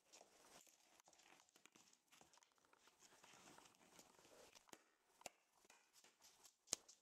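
Faint scuffling and rustling of a rough collie puppy moving about on a wooden floor while it plays, with a few light, sharp clicks and taps in the second half, the loudest near the end.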